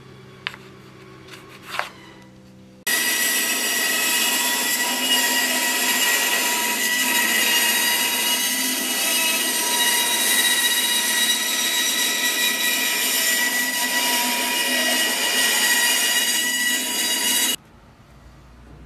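Bandsaw running and cutting a thin wooden board lengthwise into strips: a loud, steady cutting noise with a fixed tone running through it. It starts about three seconds in and cuts off abruptly near the end, after two light knocks.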